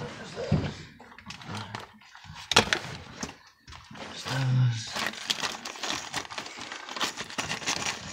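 Scraping, knocking and rustling as a person crawls and handles plumbing supplies up close, with one sharp knock about two and a half seconds in.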